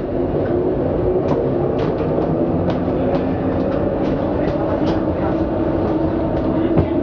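Translohr rubber-tyred tram running, heard from inside the car: a steady running noise with the hum of its VVVF traction motors, and light clicks about two a second.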